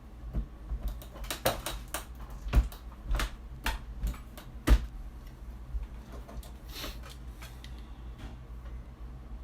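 Scattered clicks and knocks of a brass 30-30 cartridge case and reloading tools being handled at a bench while a case is resized and measured, with two sharper knocks about two and a half and nearly five seconds in, then quieter handling.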